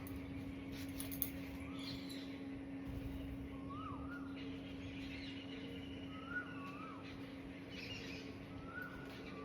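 A bird repeating a short call, rising then dipping, about every two and a half seconds, over a steady low hum.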